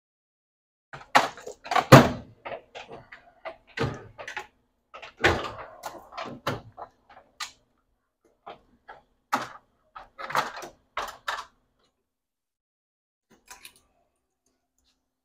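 Irregular knocks and clunks of wooden framing boards being handled and fitted into the layout frame. The two loudest come about two and five seconds in, and the knocking stops before the end.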